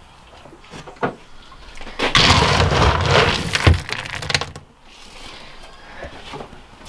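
A scoop digging into a bin of alfalfa feed pellets, the pellets rattling and pouring, for about two and a half seconds starting about two seconds in, with a few light clicks before it.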